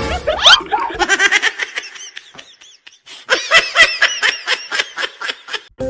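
A person laughing hard in two bouts of quick, high-pitched 'ha-ha' pulses, with a short gap around the middle. A brief loud rising cry comes about half a second in.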